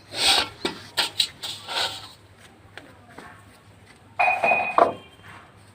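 Metal tools clinking and scraping on a diesel engine's fuel pump, a few short knocks, then a louder ringing metallic scrape about four seconds in.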